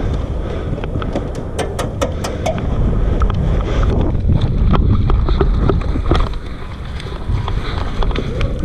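Wind and movement rumbling heavily on a head-mounted action camera's microphone, with scattered sharp clicks, several close together in the first few seconds and a few more later on.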